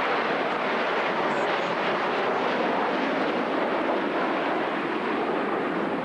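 Formation of jet aircraft flying past, a steady, even jet engine noise with no rise or fall.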